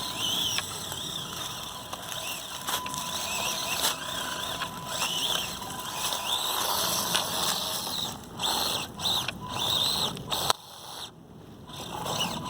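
Axial SCX24 micro crawler's small brushed electric motor and gears whining in short runs, the pitch rising and falling with the throttle, with light clicks and knocks as it crawls. The whine stops and restarts a few times and drops out about ten and a half seconds in.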